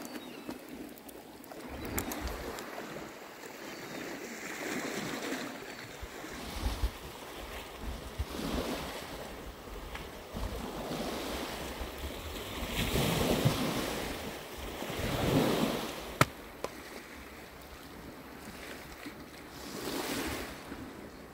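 Sea waves washing onto a pebble beach, the surf swelling and fading every few seconds, with a few sharp clicks.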